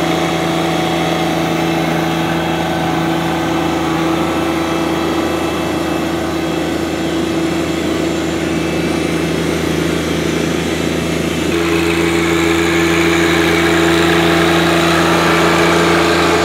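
John Deere 1025R compact tractor's three-cylinder diesel engine running at a steady throttle while the tractor drives across a lawn. It gets louder about twelve seconds in as the tractor comes close.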